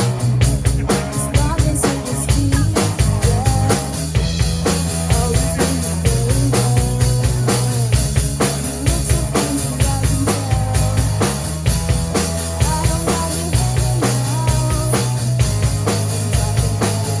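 Rock music with a full drum kit keeping a steady beat under a bass line and a moving melody.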